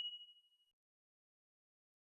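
The ringing tail of a single bright bell-like ding, fading out in about the first half-second, then silence.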